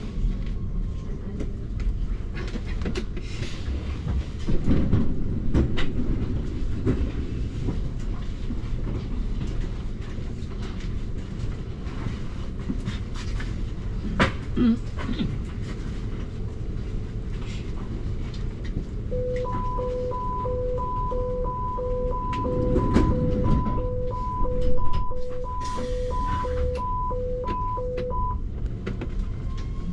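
Automated U-Bahn train standing at an underground platform with a low rumble and a few dull thumps, then a two-tone door-closing warning beeping a little faster than once a second for about nine seconds. Near the end the traction motors start a rising whine as the train begins to move off.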